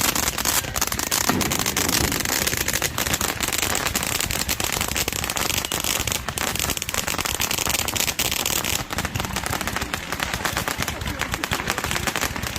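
Firecrackers going off in a rapid, continuous crackle of many sharp bangs a second.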